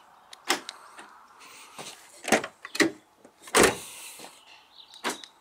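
Retrofitted central locking solenoids in a 2002 Peugeot 106's doors, worked from the key fob: five sharp clunks spread over a few seconds, the loudest and deepest about three and a half seconds in.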